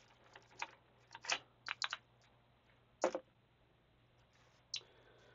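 Light plastic clicks and taps, about seven of them at irregular intervals, as ink cartridges are unclipped and pulled out of an Epson inkjet printer's cartridge carriage and set down.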